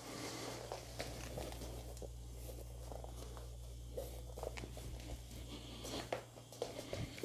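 Faint rustling and soft scattered ticks of embroidered net and taffeta being smoothed and handled, over a low steady hum.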